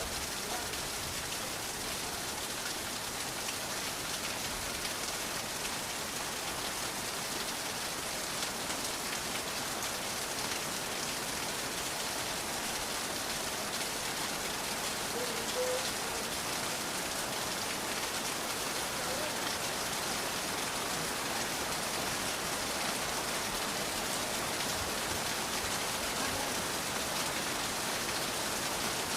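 Steady rain falling and pattering on surfaces, an even hiss that holds at a constant level with no thunder.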